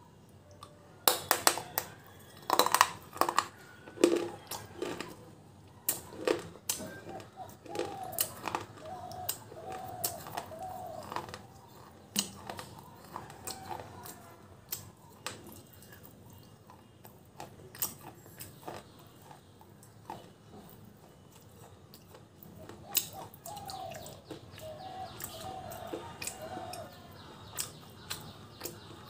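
Crunching bites and chewing of a red slate bar: sharp cracks, loudest in the first few seconds, then smaller crunches. A rooster crows twice in the background, about seven seconds in and again near the end.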